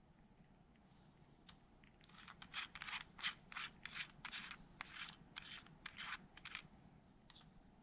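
Fingers scratching and prying at the metal casing of a slim aluminium-tube portable battery charger: a faint run of irregular, scratchy clicks that starts about two seconds in and stops near the end.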